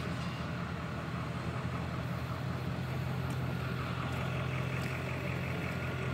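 Pickup truck engine idling, a steady low hum.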